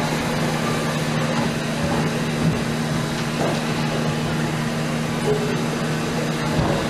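Steady hum of a large hall's ventilation over a constant background wash, with a few faint, scattered sounds from the people in the room.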